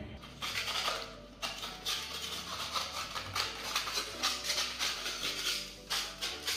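A putty knife scraping flaking paint and putty off a damp-damaged wall in repeated, uneven strokes.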